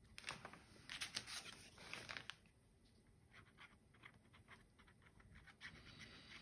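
Faint rustling and scratching of paper as a squeezed plastic glue bottle's tip is run along a paper edge, in short scattered strokes, most of them in the first two seconds or so.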